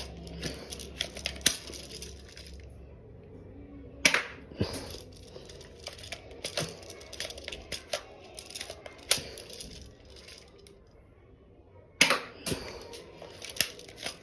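Toy pistol being handled and fired indoors: a run of plastic clicks and clacks, with two sharper, louder snaps, one about four seconds in and one near the end.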